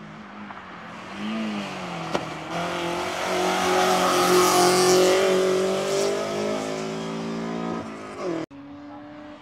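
Hillclimb race car engine coming up the course: the note dips and climbs again through gear changes, with a sharp crack about two seconds in. It grows loud as the car passes close, then fades away. The sound cuts off abruptly near the end, and a steadier engine hum follows.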